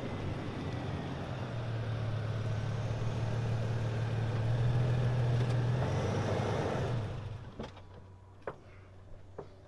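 A car engine running steadily, then switched off about seven seconds in, followed by a few light clicks.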